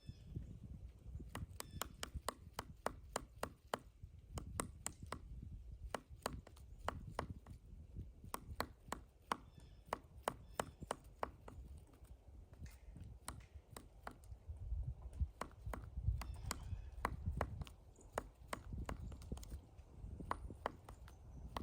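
Pileated woodpecker chiselling into a pine trunk: sharp single knocks of its bill on the wood, a few a second and unevenly spaced, rather than a fast drumming roll.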